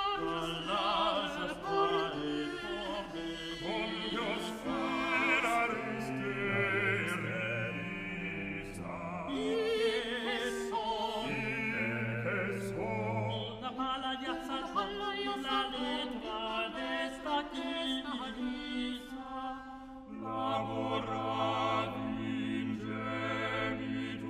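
Small ensemble of solo voices singing a Renaissance Spanish ensalada in interweaving polyphony, the voices wavering with vibrato over sustained low bass notes.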